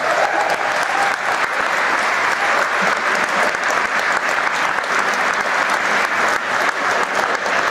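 Audience applauding, a dense steady clapping that follows the end of a banjo and guitar song.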